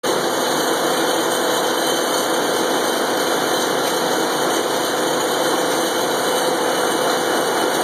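Sawmill machinery running steadily with a constant mechanical din and a faint hum; no cut is being made.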